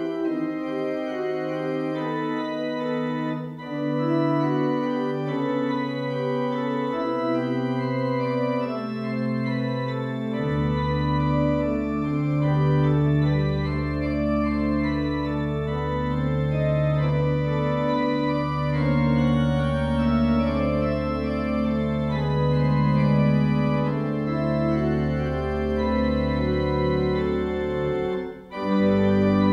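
Church organ playing slow, sustained chords, with deep pedal bass notes coming in about a third of the way through and a brief break near the end.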